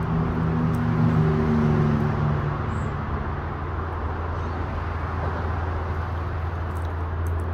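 Steady rush of motor-vehicle traffic with a low drone underneath, and an engine hum that fades out over the first two or three seconds as a vehicle goes by.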